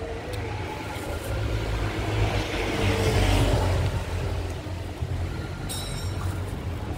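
Street traffic running by, with a motor vehicle passing close that builds to its loudest about three seconds in and then fades.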